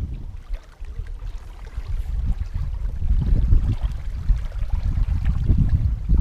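Gusty wind buffeting the camera microphone, heard as a low, uneven rumble that rises and falls, with small waves lapping at the lakeshore faintly beneath.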